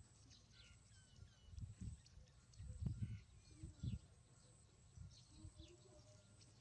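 Faint, short, high-pitched animal chirps and squeaks, with a few soft low thuds between about one and a half and four seconds in.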